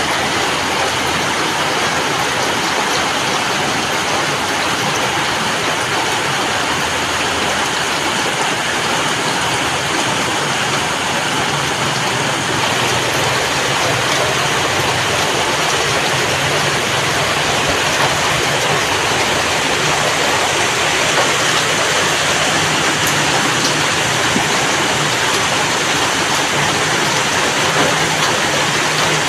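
Steady heavy rain: a dense, even hiss of falling water that never lets up.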